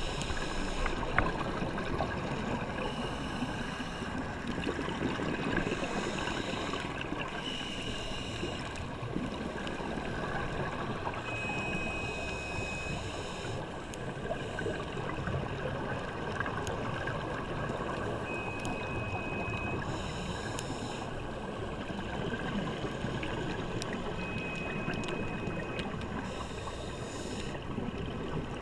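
Underwater sound picked up by a camera in a dive housing: a steady muffled rush, with bursts of bubbling hiss every few seconds from divers' exhaled air. A faint high whistle sounds three times, each for about a second and a half.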